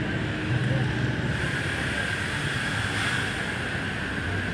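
A large coach bus idling close by: a steady engine hum with a steady high whine over it, amid the noise of street traffic.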